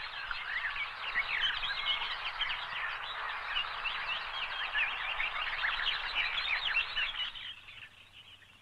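A dense chorus of many small birds chirping all at once, fading out near the end.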